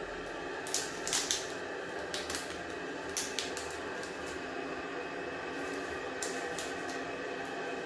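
A few short clicks and rustles of close handling, clustered in the first three seconds, over a steady background hum.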